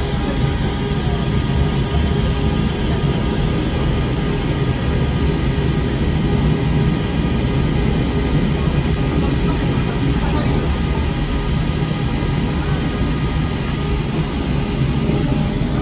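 Peak Tram funicular car running: a steady low rumble with a faint even hum over it.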